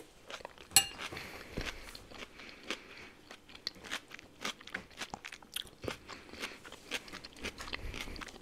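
Close-miked chewing of crunchy food: a run of irregular crisp crunches, with one sharper crack about three-quarters of a second in.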